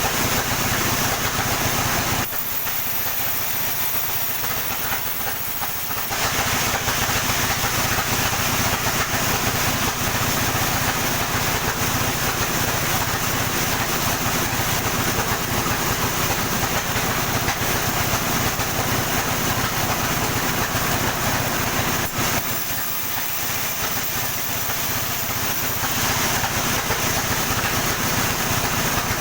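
A sawmill running steadily, sawing a coconut palm trunk: a continuous machine hum with hissing cutting noise. The sound drops a little and thins out twice, for a few seconds each time, about two seconds in and again past twenty-two seconds.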